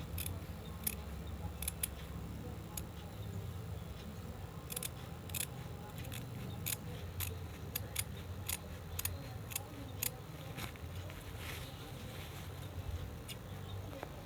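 Scissors snipping through cloth: a string of sharp, irregularly spaced snips, some in quick pairs, over a steady low hum.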